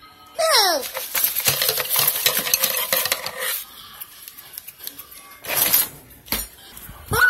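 Metal cutlery rattling and clinking in a kitchen drawer as it is pulled open and rummaged through, then a couple of louder knocks near the end.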